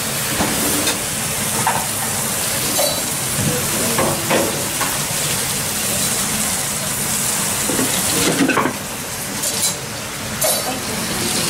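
Sauced pork sizzling steadily on a hot cast-iron plate, with scattered clinks and knocks of metal pans and utensils and a louder clatter about eight seconds in.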